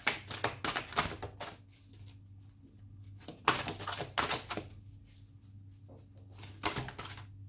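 A deck of oracle cards being shuffled by hand: three bursts of quick, crisp card flicks and slaps, the second about three and a half seconds in and the last near the end.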